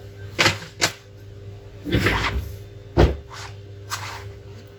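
Several sharp knocks and clatters of tools or parts being set down and handled on a repair workbench, the loudest about three seconds in, over a steady low hum.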